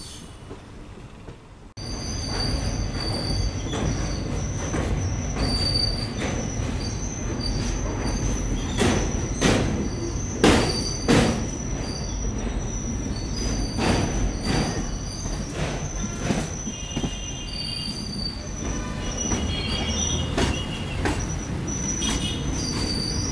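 Indian Railways express passenger coach running on rails with a steady heavy rumble. High-pitched wheel squeal comes and goes, and there are loud metallic clanks from the wheels crossing points and rail joints as the train comes into a station. The sound jumps from quiet to loud about two seconds in.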